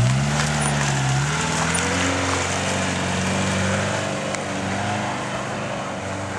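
Kia Sportage engine revving up, then pulling steadily under load as the SUV climbs a sandy hill track. The pitch rises right at the start, then holds with small changes.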